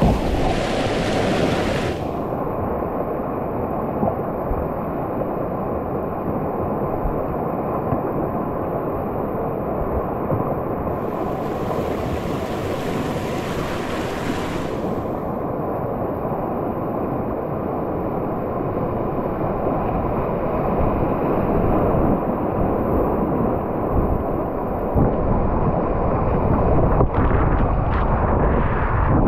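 Steady roar of rushing whitewater on a river in spate, heard from a kayak on the water, with some wind buffeting on the microphone.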